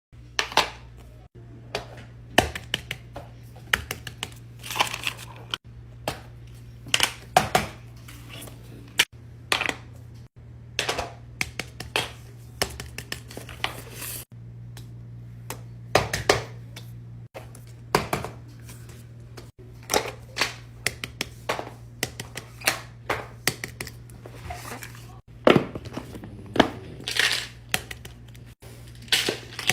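Crinkling, tearing and clicking of tape, paper and plastic being handled while making DIY fidget toys, in short clips cut together, over a steady low hum.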